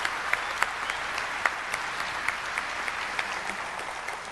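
Audience applauding steadily, the clapping easing slightly near the end.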